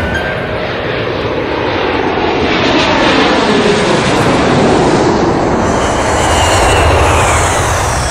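Twin-engine jet airliner passing low overhead: a loud, steady engine rush whose tones slide down in pitch as it goes by.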